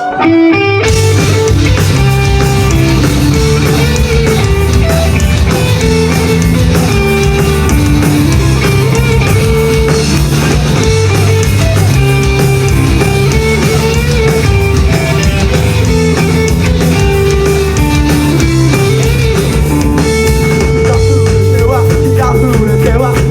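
Rock band playing live, loud and steady: electric guitars with a lead melody over bass and drum kit, kicking in sharply just after the start. The song's instrumental opening, with no vocals yet.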